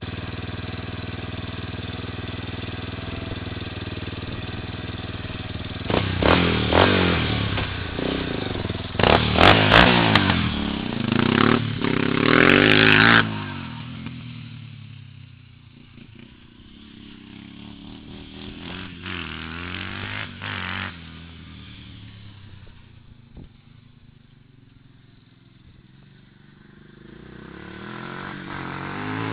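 Yamaha Warrior ATV's single-cylinder four-stroke engine through an FMF PowerCore 4 exhaust: idling steadily, then revved in several sharp blips starting about six seconds in. It then drops away much quieter as the quad moves off, and grows louder again near the end as it comes back.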